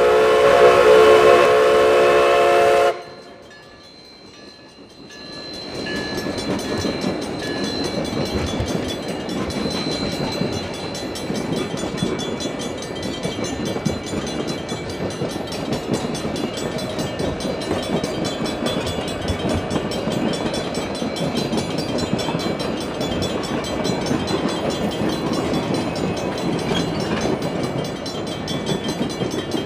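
A narrow-gauge steam locomotive's whistle sounds loud and chime-like, then cuts off sharply about three seconds in. After a brief lull the train rolls past the crossing with a steady rumble and rail clatter from its wheels.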